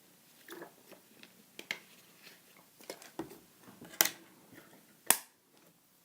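Faint scattered clicks and small handling taps, with two sharper clicks about four and five seconds in.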